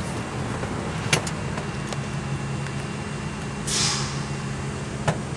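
Steady low mechanical hum of a running motor, with a couple of sharp handling clicks and a brief hiss about four seconds in.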